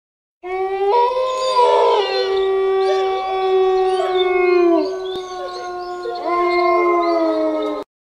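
Wolves howling together: several long, overlapping howls at different pitches. The lowest howl falls in pitch about five seconds in and rises again about a second later. The howls cut off suddenly near the end.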